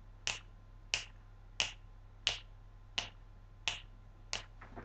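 Finger snapping in a steady beat, about three snaps every two seconds, seven sharp snaps in all.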